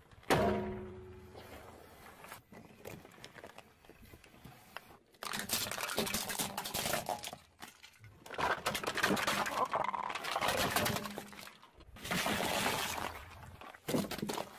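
Car tyre crushing objects on asphalt: a sharp pop right at the start that rings briefly, then long stretches of crackling and crunching as hard plastic toys such as a toy wheel loader break under the wheel, and another sudden crack near the end.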